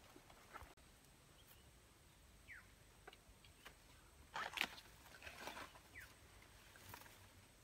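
Faint rustling and crackling of large dry leaves and sticks being handled, with a louder burst of rustling a little past halfway.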